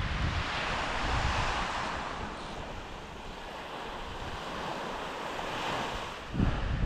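Small surf waves washing onto a sandy beach, with wind rumbling on the microphone. The wash swells about a second in and again near the end, and a gust hits the microphone just before the end.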